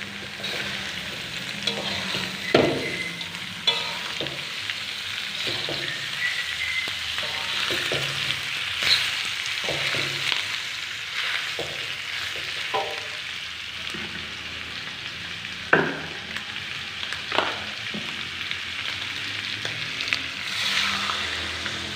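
Pieces of beef sizzling in hot oil in a pan, with a utensil knocking and scraping against the pan now and then as the meat is stirred.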